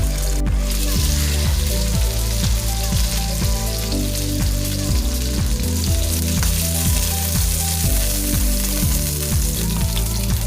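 Food sizzling steadily as it fries in a hot pan, over a background music track.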